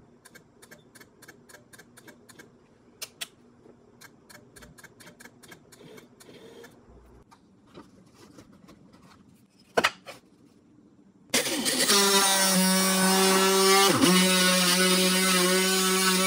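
Faint clicks and handling noises, then a louder click, and about eleven seconds in the homemade mini drill press's DC motor starts and runs with a steady whine. Its pitch dips briefly once as the bit is pressed into the plywood.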